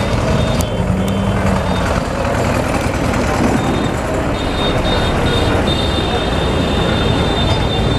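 Diesel engines of farm tractors towing trailers as they drive past close by, a steady low rumble that carries on throughout.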